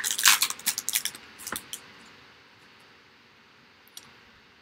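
Foil wrapper of a Topps Chrome baseball card pack crinkling as it is torn open by hand: a run of crisp crackles in the first second and a half, then quiet apart from a single click near the end.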